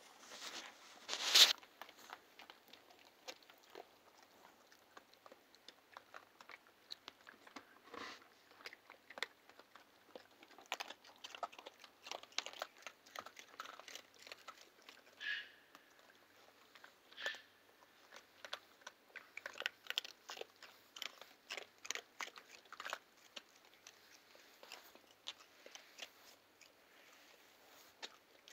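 A raccoon chewing and crunching close to the microphone: irregular crunches throughout, with a louder sharp knock about a second and a half in.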